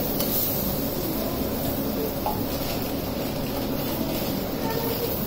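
Steady whir of a kitchen exhaust hood fan running over a gas stove, an even noise with a low hum under it.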